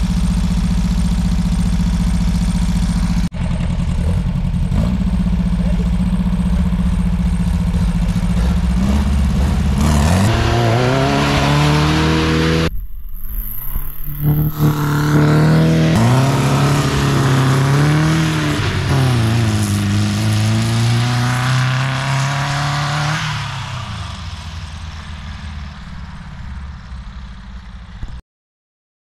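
Dune buggy engines idling steadily, then a buggy revving and pulling away across grass, its engine note rising and falling several times before fading out near the end.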